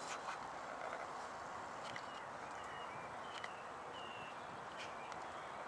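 Quiet outdoor ambience by a lake: a steady faint hiss, with a handful of short, faint bird chirps about two to four seconds in and a few light clicks.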